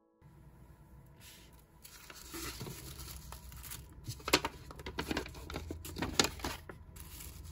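Paper being handled at a desk: rustling and crinkling, with several sharp crackles or tears about four to six seconds in.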